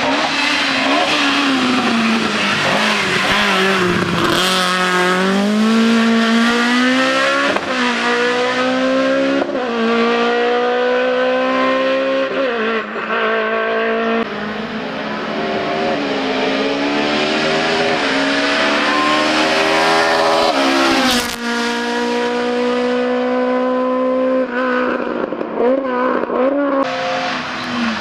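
Hill-climb race car engine running hard under acceleration. Its pitch climbs and falls back sharply again and again as it shifts gears, with a few quick revs near the end.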